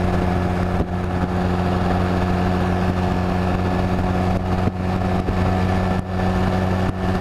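2005 Honda Rebel 250's air-cooled parallel-twin engine running at a steady cruising speed, its drone holding one pitch, with wind noise over it.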